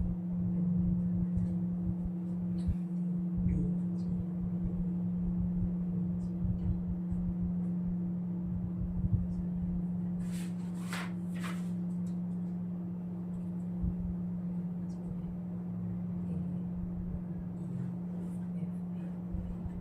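A steady low humming drone holding one pitch, with faint overtones above it. Soft scattered rustles and clicks, with a brief hiss about ten seconds in.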